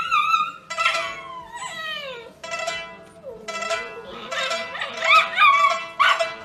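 Husky puppy howling: a series of drawn-out howls that slide down in pitch, then rise and waver, over background music.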